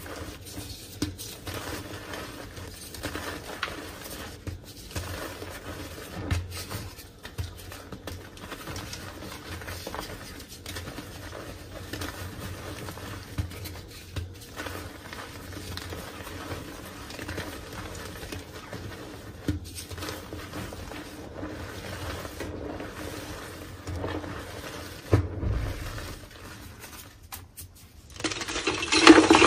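Hands squeezing and crumbling soft reformed gym chalk in a bed of chalk powder: a steady soft crunching full of small crackles. Near the end it changes to louder, crisper crunching of firmer chalk blocks.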